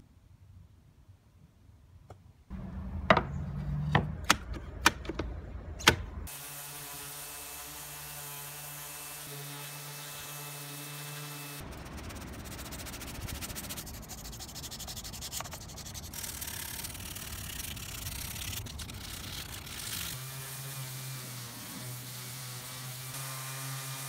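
A few sharp knocks, then a cordless random orbital sander running steadily on the wooden tabletop. It gives way for several seconds to a hand tool rubbing and scraping along the edge of the wood to take off the old finish, and then the sander starts up again.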